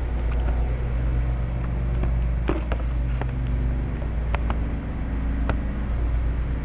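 A steady low machine hum with a few light clicks and knocks.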